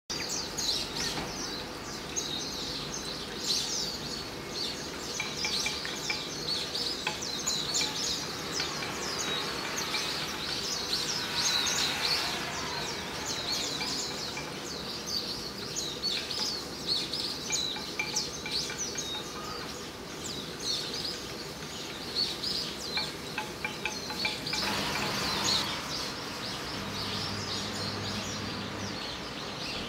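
Small songbirds chirping without pause, many short high calls close together, over a faint steady hum. A short rush of noise comes about 25 seconds in.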